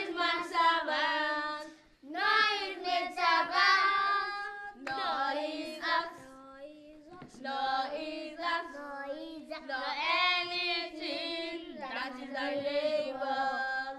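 Children and a woman singing a children's Bible song together, in short phrases with brief pauses between.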